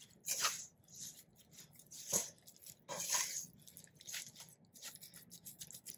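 Metal spoon stirring wheat gluten dough in a stainless steel bowl: irregular scraping, squishing strokes as the spoon drags through the dough and against the bowl. The dough is starting to tighten up as the gluten takes up the water.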